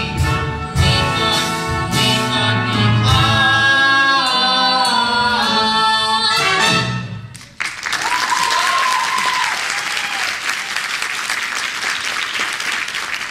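A musical-theatre duet, two voices singing over instrumental accompaniment and ending on a held final note about seven seconds in. The audience then breaks into applause, with a cheer rising above it.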